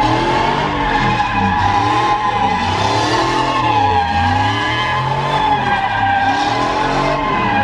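Pickup truck doing a smoky burnout in circles: a continuous tire screech that wavers slightly in pitch, over an engine held at high revs that rises and falls.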